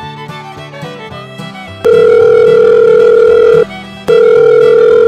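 Background country-style music, then a loud telephone ringing tone laid over it: two long steady beeps, each about two seconds, with a short gap between them.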